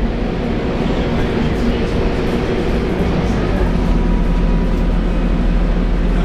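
Scania K230UB bus's DC9 9-litre five-cylinder diesel engine and ZF Ecomat automatic transmission under way, heard inside the passenger cabin: a steady drone with road noise. A faint thin whine joins about four seconds in.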